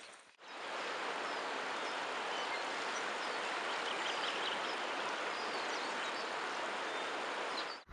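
Steady, even hiss of water, such as a river stream or heavy rain, holding unchanged at one level.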